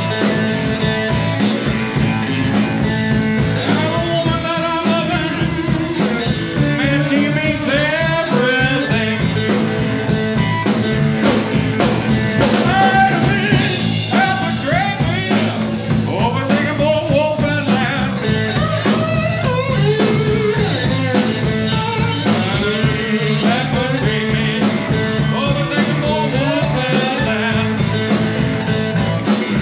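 Live electric blues band playing: slide guitar lines gliding in pitch over bass guitar and drums, with a man singing.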